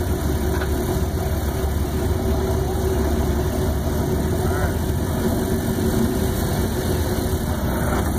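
Engine of a lifted off-road truck idling steadily, a low, even hum.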